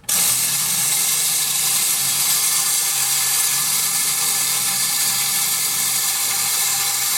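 Spring-driven clockwork motor of a Soviet tin wind-up gas station toy running after its lever is released: a steady, loud whirring buzz of gears that starts abruptly and holds even throughout.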